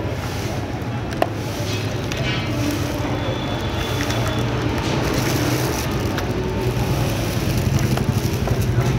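Steady low hum of background road traffic, with a single sharp click about a second in.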